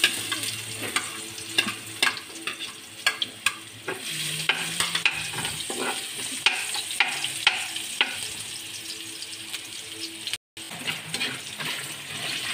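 Chopped garlic sizzling in hot oil in a nonstick frying pan, stirred with a metal spoon that scrapes and clicks against the pan many times over a steady frying hiss.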